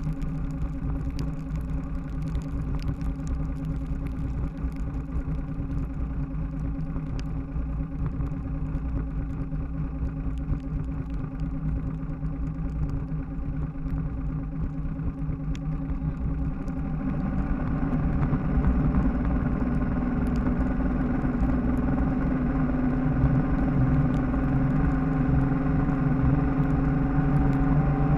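Bass boat's outboard motor running at high speed, a steady drone at constant pitch that grows louder about two-thirds of the way through, over a low rushing of wind and water.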